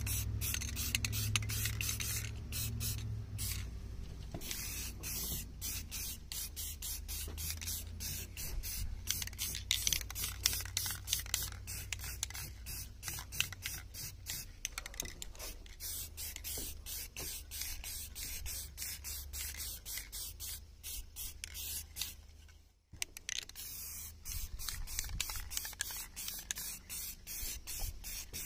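Aerosol can of Rust-Oleum high-temperature primer spraying onto a steel wood stove, hissing in many short bursts, with a brief break about 23 seconds in.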